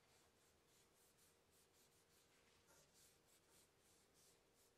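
Faint, soft swishing of a cloth rag rubbed back and forth over a wooden tool handle, a few strokes a second.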